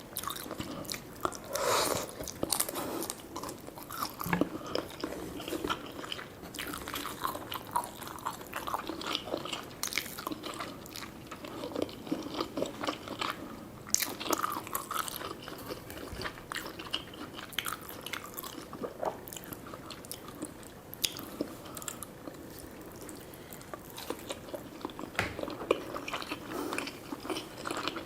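Close-miked eating of sushi, sashimi and gyoza: chewing and biting with many short, irregular mouth clicks, without a pause.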